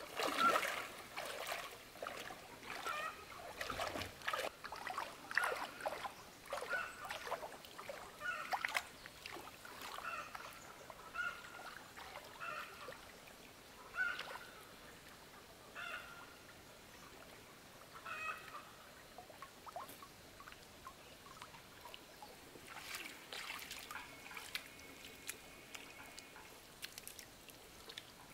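Water splashing and sloshing in short, irregular bursts as a person wades through a shallow pond and handles a fishing net.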